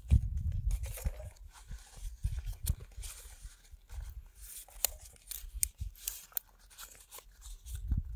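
Hand food preparation: irregular tearing, cutting and crunching sounds with many short clicks, and a heavy low thump in the first second.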